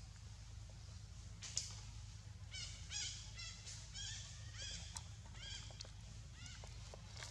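Baby macaque crying: a run of short, high squeals that each rise and fall, about two a second, starting about two and a half seconds in.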